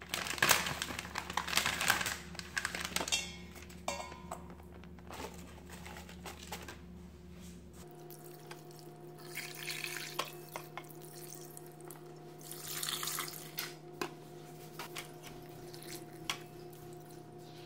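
Water poured from a glass measuring pitcher into a stainless steel pot holding a whole chicken, in splashing pours of about a second each. Before that, ingredients are handled and knocked against the steel pot.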